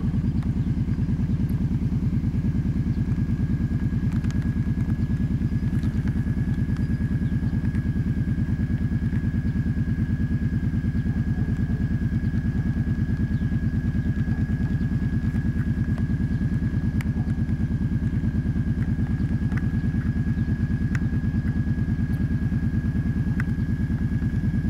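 Kawasaki ATV engine idling with an even, rapid pulsing and no revving, alongside a faint steady high whine and an occasional light tick.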